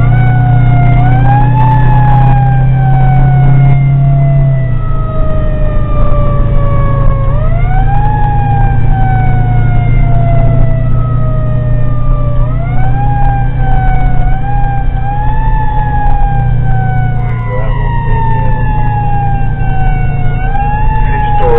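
Fire engine siren wailing, heard from inside the cab. Each cycle climbs quickly in pitch and then sags slowly over several seconds before climbing again. A heavy, steady engine drone runs underneath.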